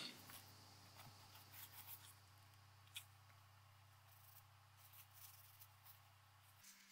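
Near silence: quiet room tone with a faint low hum and scattered faint ticks and rustles of light handling, with one small click about three seconds in.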